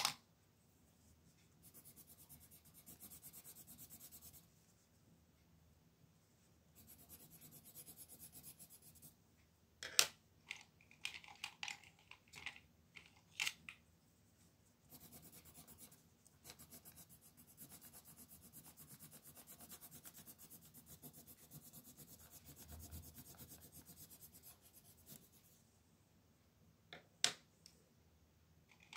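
Faint dry scratching on paper in three long stretches, broken by a few sharp clicks and taps around ten to fourteen seconds in and again near the end.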